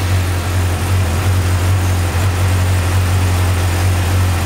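2017 Yamaha R6's inline-four engine idling steadily with a low, even hum, freshly started on new oil and a new filter.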